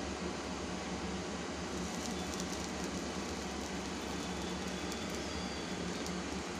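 Steady low hum and hiss of background noise, with a few faint light taps about two seconds in and again about five seconds in as bread rolls are set down on a flat iron griddle.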